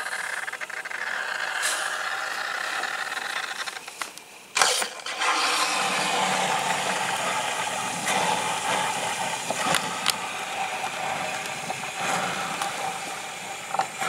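A Black & Decker drip coffee maker running and hissing steadily with nothing coming out of it, which the owner takes for a clog in its water line. A sharp knock sounds about four and a half seconds in, with a few light clicks later.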